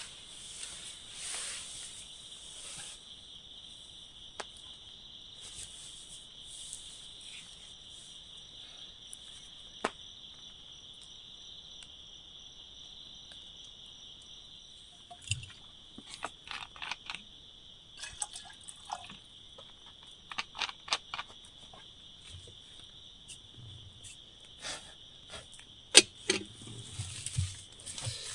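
A steady, high-pitched chorus of insects such as crickets, with scattered short ticks and taps in the second half.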